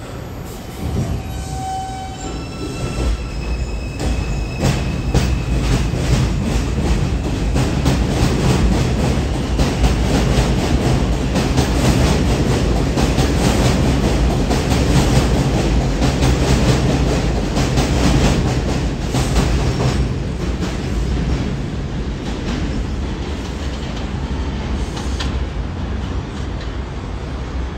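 R142 subway train accelerating out of an elevated station. Its motors whine in short rising tones for the first few seconds, then the cars rumble and clack over the rail joints as they pass, loudest around the middle, and the sound eases as the train pulls away.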